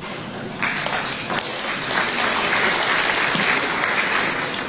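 Audience applauding, a dense patter of many hands clapping that starts about half a second in and carries on steadily.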